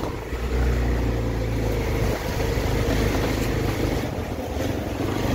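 A vehicle's engine running with a steady low rumble as it drives along, heard from on board.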